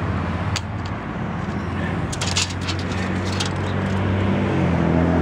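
A steady low motor hum, like an engine running, that grows a little louder toward the end, with a few sharp clicks and rattles.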